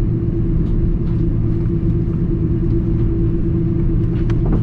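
Steady low rumble and hum of an Airbus A330-200's cabin, with one steady tone running through it and a few faint ticks.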